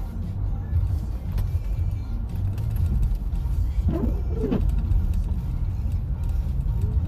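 Car driving, with a steady low rumble of engine and tyres on the road. About four seconds in there is a brief wavering, pitched sound.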